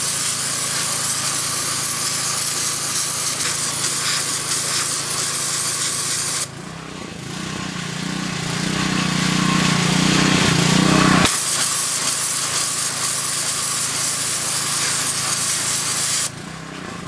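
High-pressure water jet hissing as it blasts a fossil rock. The spray cuts off about six seconds in, leaving a low steady hum. It starts again about five seconds later and stops just before the end.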